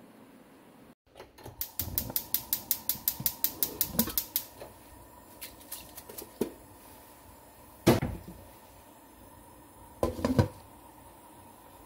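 Stovetop burner igniter clicking rapidly, about eight clicks a second for nearly three seconds, as the burner under a pot of water is lit. A few light knocks and one loud knock follow, then a pot lid clatters as it is set onto the pot near the end.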